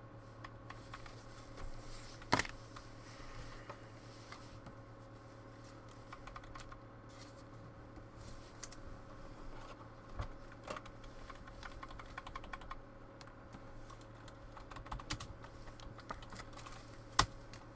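Trading cards being handled and sorted: scattered light clicks and taps, with a sharper click about two seconds in and another near the end, over a steady low hum.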